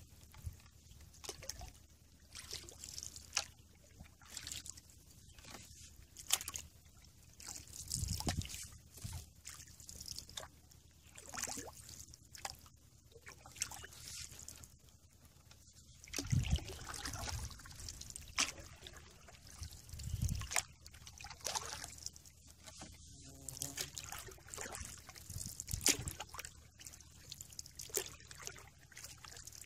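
Canoe paddle strokes in calm water: the blade dips and pulls through the water every few seconds, with water trickling and dripping off it between strokes.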